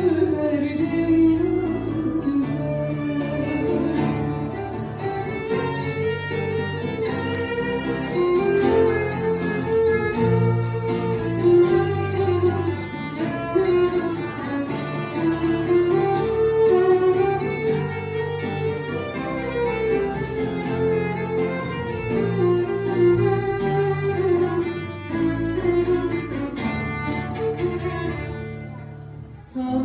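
Live band playing an instrumental interlude of a Turkish pop song: a violin carries the melody over strummed guitars and a bass line. The music thins out briefly near the end.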